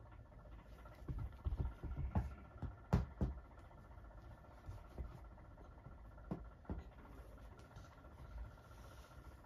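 Soft thumps and rustling of a toddler moving and kicking her legs on a bed: a run of bumps in the first few seconds, the loudest about three seconds in, then a few single soft knocks.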